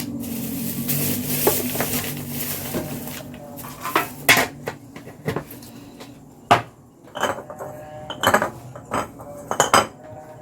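Kitchen utensils clinking against pots and dishes: a steady hiss for the first few seconds, then a string of separate sharp clinks.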